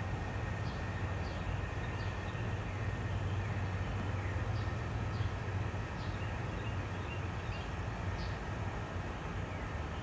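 Outdoor ambience: a steady low hum with short, faint, high chirps repeating irregularly about once or twice a second.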